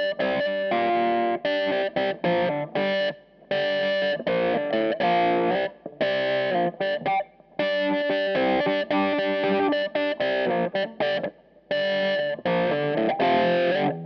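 Electric guitar riff played through a Jam Pedals Seagull in cocked-wah mode on its third sweep range, with a little overdrive and reverb. It comes as choppy, repeated phrases with brief gaps between them.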